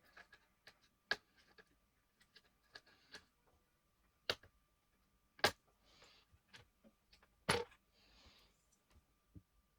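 Scattered small clicks and taps of tools and plastic or metal parts being handled while a laptop is taken apart, four of them sharper and louder, with a few brief soft scraping sounds between.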